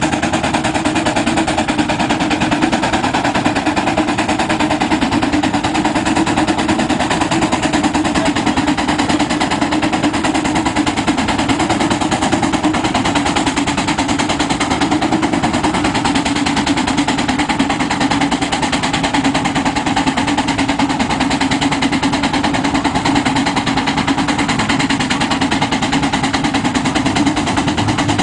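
Case steam traction engine working hard, its exhaust beating up the stack in a rapid, steady chuff with no let-up.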